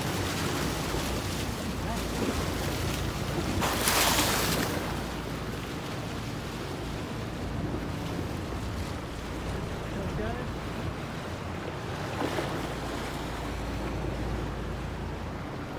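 Water rushing along the hull of a moving boat, with wind on the microphone over the low steady hum of the boat's engine. A louder rush of water lasting about a second comes about four seconds in.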